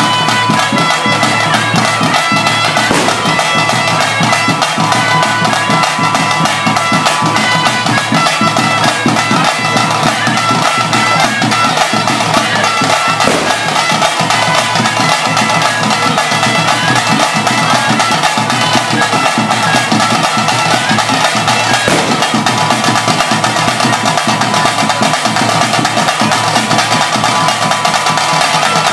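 Bhuta kola ritual music: a wind instrument playing a melody over a steady drone, with a drum keeping a regular beat.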